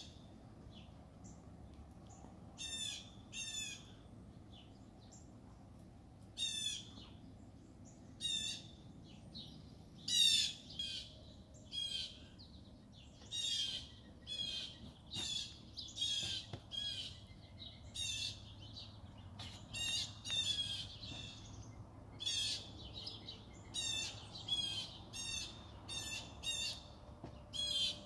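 Birds calling: short, harsh chirps, a second or two apart, coming more often in the second half, over a faint steady low hum.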